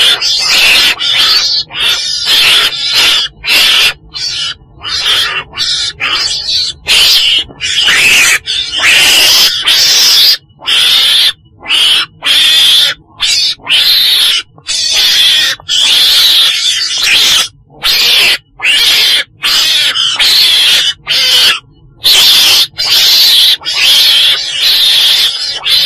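Chồn đèn, a small mustelid (weasel family) that the uploader labels Mustela, calling in a rapid series of loud, hiss-like screeches. Each call is under a second to about a second long, with short breaks between them.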